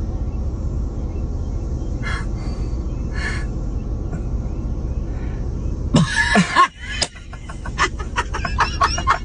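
Steady low rumble, with a couple of brief hissy bursts a few seconds in. About six seconds in, a person's voice breaks in, followed by a run of short, quick, breathy vocal sounds.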